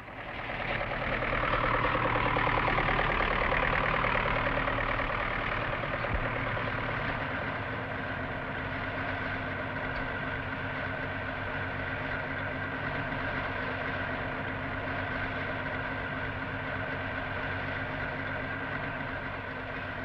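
Massey Ferguson 500 combine harvester with its 94-horsepower engine running while it works in the field: a steady machine drone with an even engine hum, louder for the first few seconds and then settling.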